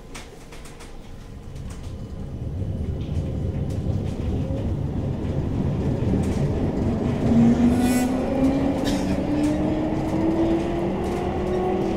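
CAF Urbos 3 tram picking up speed, heard from inside the car: the running rumble grows louder over the first few seconds, and from about halfway the traction motors' whine rises steadily in pitch. Wheels click over rail joints now and then.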